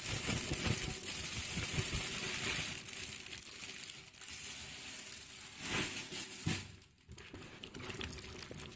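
Plaster of Paris powder being tipped into water in a bucket, with crinkly rustling from the packet it is poured from and a couple of short knocks about two-thirds of the way through.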